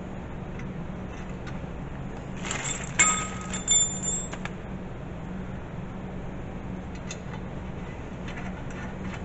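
Small metal hardware clinking and ringing briefly, a cluster of clinks about three seconds in, as a bolt and its fittings are handled by hand on the UTV's plow mount plate. A few faint ticks follow, over a steady low hum.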